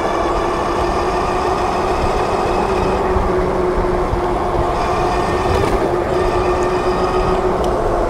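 Super73 RX electric bike's rear hub motor whining at a steady pitch while cruising, under a constant rush of wind on the microphone.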